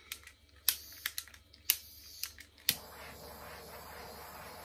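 A handheld torch being readied with several sharp clicks, then one loud click about two and a half seconds in as it lights and burns with a steady hiss.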